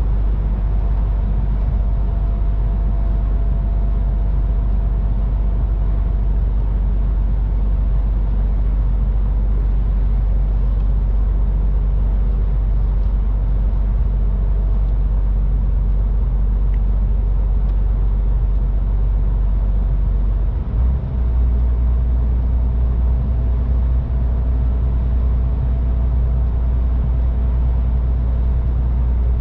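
MAN TGX 18.510 semi-truck driving at road speed: a steady low drone of engine and road noise with a faint steady whine. The low rumble grows heavier about two-thirds of the way through.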